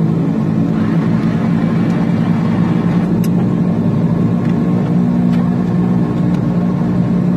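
Turboprop airliner's engines heard inside the passenger cabin: a steady, loud drone of several held pitches, with a few faint clicks.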